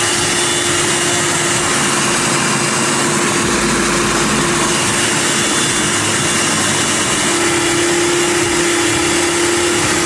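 Food processor motor running steadily at full speed, blending crushed Oreos and milk into a cake batter, with a constant hum; it cuts off at the very end.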